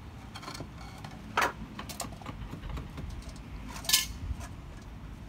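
Light clinking and clattering of small metal items being handled, with two sharper knocks, one about a second and a half in and one about four seconds in.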